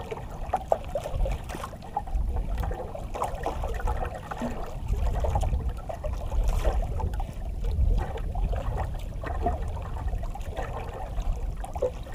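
Sea water lapping and splashing against the hull of a small outrigger banka, with an uneven low rumble of wind on the microphone.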